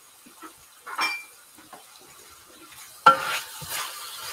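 A single light clink about a second in; then, about three seconds in, spice-marinated chicken pieces frying in a pan are stirred, a utensil scraping and knocking against the pan over the sizzle.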